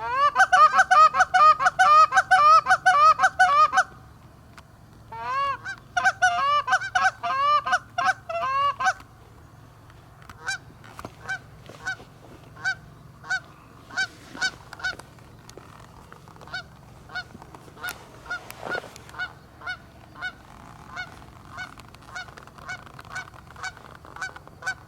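Canada geese honking: a fast, loud run of honks for about four seconds, a second run after a short pause, then fainter single honks spaced about half a second to a second apart.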